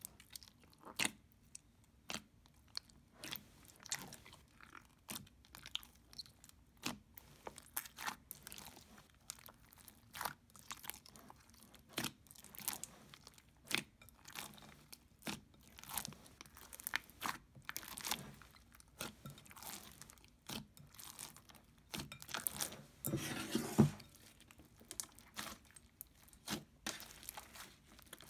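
Slime being mixed by hand, squished, stretched and folded, with an irregular run of small pops and crackles. A longer, louder crackling stretch comes about 23 seconds in.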